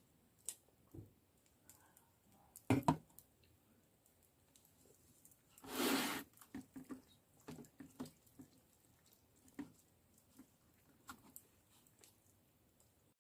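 Scattered clicks and light knocks from small objects being handled, with the loudest knocks about three seconds in and a short burst of scraping or rustling noise about six seconds in.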